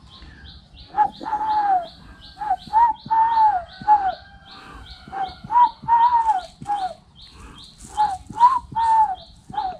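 A man imitating the cooing call of a spotted dove through a cupped hand: three phrases of short, falling coos, each phrase ending in a longer drawn-out note. A faint high chirp repeats steadily about three times a second behind it.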